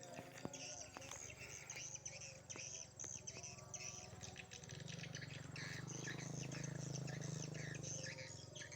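Swiftlets twittering: a dense run of rapid, short chirps, over a steady low hum that grows louder in the second half.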